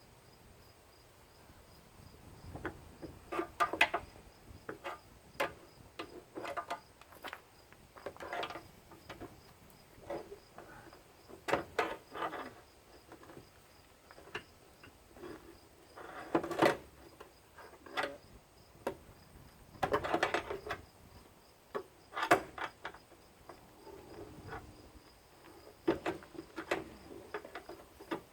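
Irregular knocks and clatter of hand tools and parts as an electric lawn mower is taken apart. A steady high chirring of crickets runs underneath.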